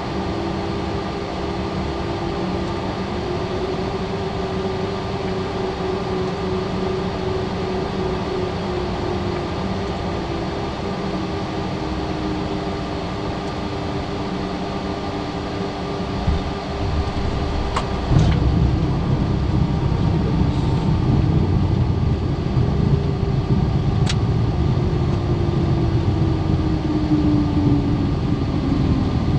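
Cockpit noise of a Cessna Citation Latitude's twin turbofans and airflow, steady on final approach. About 18 seconds in the main wheels touch down and a louder, rougher rumble of the rollout takes over, with a couple of sharp clicks and an engine tone falling near the end as the jet slows.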